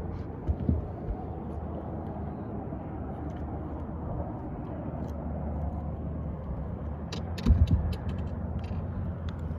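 Steady low hum of a boat motor running. About seven and a half seconds in there is a short cluster of sharp knocks with a heavy thump.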